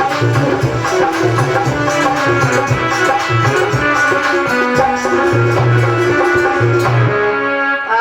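Instrumental interlude of Indian devotional folk music: hand drums keep a rhythm under a held melody. The drums drop out about seven seconds in, leaving only the sustained notes.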